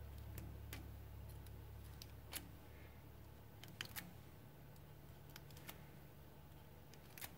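Faint scattered clicks and scrapes of a screwdriver tip working the end of a stainless-steel braided hose, spreading the braid away from the rubber liner, over a low steady hum.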